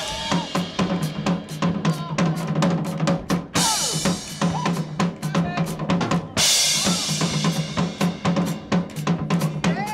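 Drum kit played hard in a fast, busy pattern of snare and bass-drum hits, with cymbal crashes about three and a half and six and a half seconds in.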